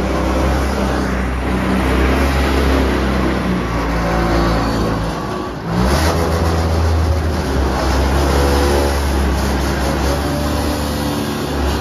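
Heavy dump truck's diesel engine running at low speed as the truck backs slowly down a launch ramp, a steady loud hum with a brief dip just before six seconds in.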